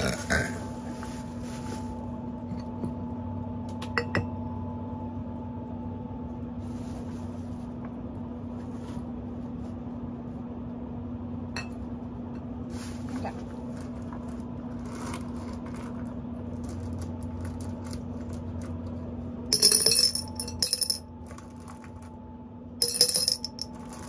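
Small polished and rough rocks and crystals clicking and clinking as they are handled and set into a container, with a few faint clicks early on and two louder clattering bursts near the end. A steady low hum runs underneath.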